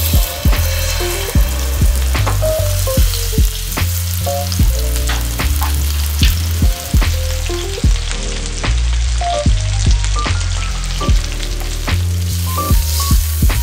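Pepper-crusted beef steaks sizzling in oil in a stainless steel frying pan, the sizzle starting as the first steak is laid in. Background music with a beat and a bass line plays throughout.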